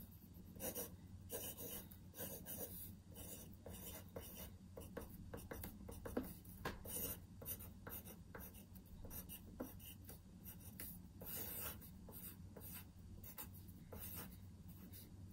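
Pencil sketching quickly on paper: a fast run of short, irregular scratching strokes, faint, over a low steady hum.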